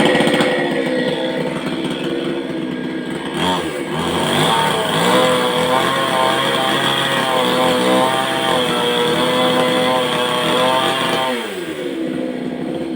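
Chainsaw running at high revs, starting abruptly, its engine note wavering up and down, then falling as the revs drop near the end.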